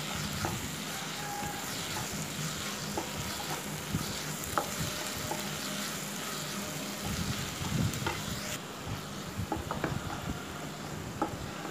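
Onion, tomato and capsicum sizzling in oil in a kadai as a wooden spatula stirs them, with scattered scrapes and taps of the spatula against the pan.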